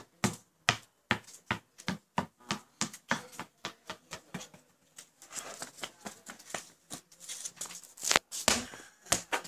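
A quick run of sharp taps, about three a second, with one louder knock a little after eight seconds in.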